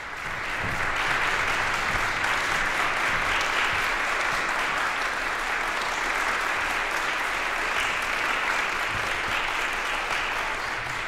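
Audience applause: dense, steady clapping that swells in over the first second and eases slightly near the end.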